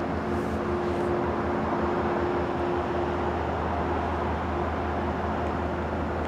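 Steady low rumble with a constant hum from a diesel locomotive idling at the platform; the low throb pulses for the first few seconds, then evens out.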